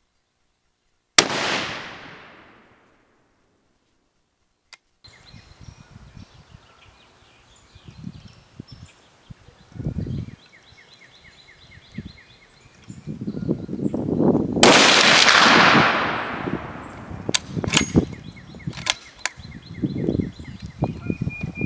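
Two rifle shots from a Browning A-Bolt II in .338 Remington Ultra Mag fitted with an APS three-port PainKiller muzzle brake. The first is a sharp crack about a second in, dying away over a second and a half. The second, about fourteen seconds in, is louder and rings on longer, and a few sharp clicks follow it.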